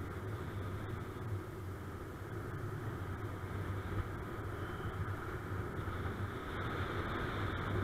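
Steady rush of wind over a paraglider pilot's camera microphone in flight, with a low rumble underneath and no gaps.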